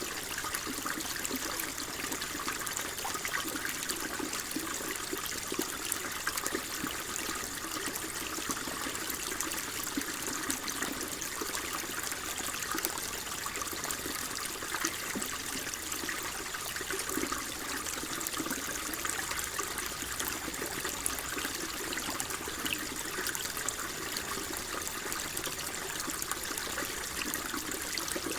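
Water flowing steadily, a constant trickling rush full of small splashes.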